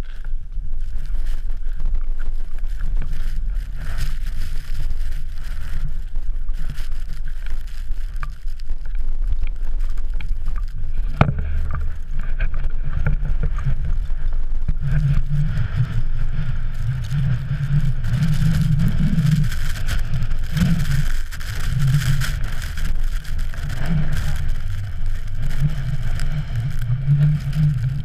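Wind buffeting the action camera's microphone: a heavy, steady low rumble that grows stronger from about halfway, with scattered faint knocks.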